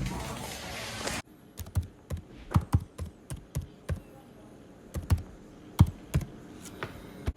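Background din that cuts off abruptly about a second in, followed by irregular light taps and knocks, two or three a second.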